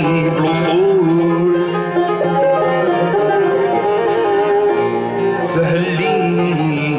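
Live ensemble of oud, mandole and banjo playing a plucked-string melodic passage in North African style.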